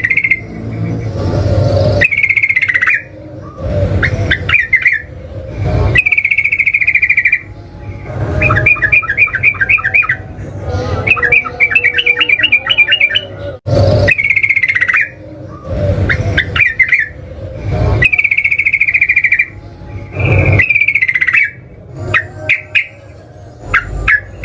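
Yellow-vented bulbul (trucukan) singing loudly in a long, busy run of short bubbly phrases, broken by brief pauses. Two rapid chattering trills come about eight and twelve seconds in.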